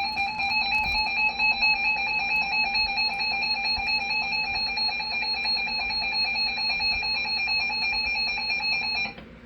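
Emergency Alert System two-tone attention signal: a loud, steady electronic alarm tone held for about nine seconds, cutting off suddenly near the end. It is the attention signal that comes before a broadcast emergency alert message.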